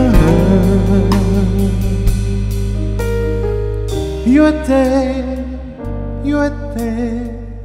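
Live band music: a male singer sings sliding, drawn-out melodic phrases into a handheld microphone over a sustained bass layer and a drum kit with cymbal hits. The low bass drops away briefly about four seconds in, then returns.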